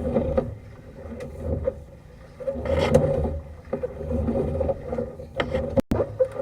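A sewer inspection camera's push cable is being fed down an ABS drain line, giving an uneven low rumble with scattered scrapes and knocks.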